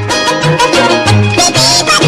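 Upbeat comedy ringtone tune: a bouncing bass line under a bright, wavering lead melody.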